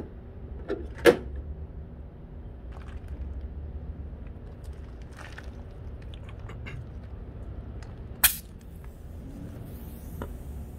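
Sharp metal clicks from handling an air hose and a pneumatic rivet gun: a loud one about a second in and another near eight seconds in, with smaller ticks between, over a low steady rumble. A faint high hiss of escaping air starts near the end as the air hose is coupled to the rivet gun.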